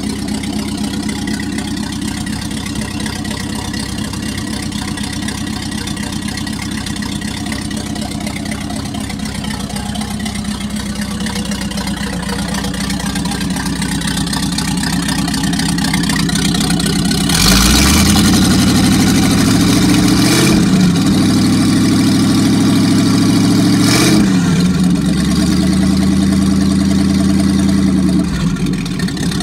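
Packard 356 marine straight-eight engine, freshly rebuilt, idling steadily, then run up to a higher speed a bit past halfway, with the revs dipping briefly twice, and dropping back to idle near the end. It is still clearing the excess assembly oil out of its cylinders on this first run after the rebuild.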